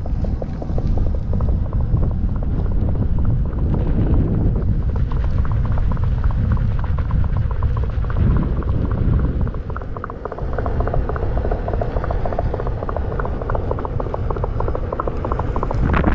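Rapid clip-clop of horse hoofbeats played through an electric unicycle's built-in speakers as an acoustic vehicle alert sound, over a steady low rumble of wind on the microphone while riding. The rumble dips briefly about two-thirds of the way through.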